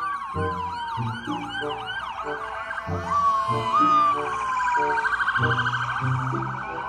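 Several police car sirens sounding together: a fast yelp repeating a few times a second over a slower wail that slides down in pitch and climbs back up, with background music underneath.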